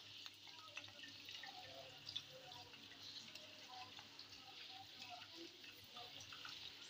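Hot oil deep-frying pani puri shells: faint, steady sizzling with scattered small crackles and pops as the puris puff up.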